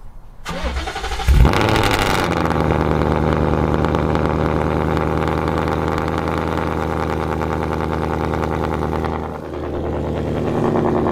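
2018 Ford Mustang GT's 5.0 L Coyote V8 cold-starting through long-tube headers and a resonator-deleted H-pipe: the starter cranks briefly, the engine catches about a second and a half in with a loud flare, then settles into a steady idle. The idle dips briefly near the end.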